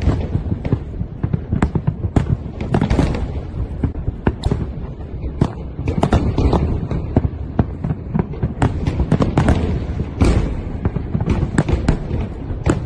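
Fireworks going off in a dense barrage: many sharp cracks and bangs in quick succession over deep, rolling booms.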